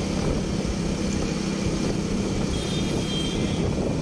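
Motorcycle engine running steadily at a constant cruise of about 40 km/h, a low even hum over road and wind noise.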